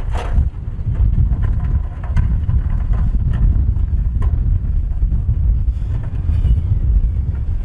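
Dump truck running with a deep, steady rumble while its bed tips, and rocks knock and clatter as they slide out of the bed and onto the rock pile.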